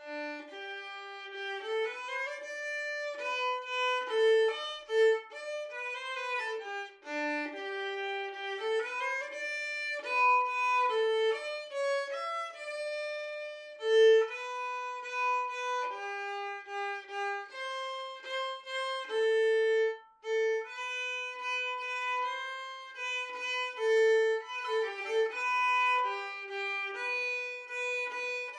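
Solo violin playing a melody one note at a time, with no accompaniment.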